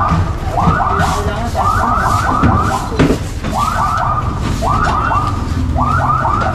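Electronic alarm sounding short rising whoops in quick groups of three or four, repeating over a steady low rumble, with a single knock about three seconds in.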